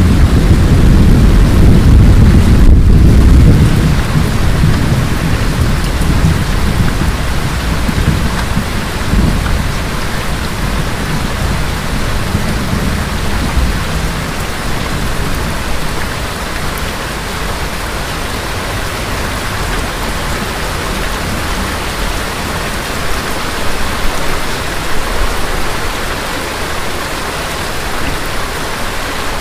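Thunderstorm: a long roll of thunder rumbles and fades away over the first several seconds, leaving steady rain.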